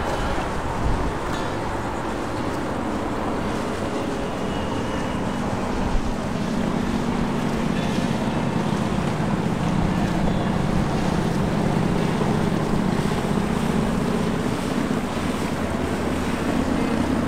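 Outboard motorboat running on open water, its low engine hum growing louder from about six seconds in. Wind buffets the microphone throughout.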